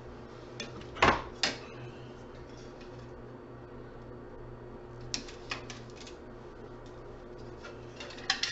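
Hand tools and metal parts of a computer power supply clattering on a workbench as it is taken apart: two sharp knocks about a second in, a few lighter clicks around five seconds, and more near the end. A steady low hum runs underneath.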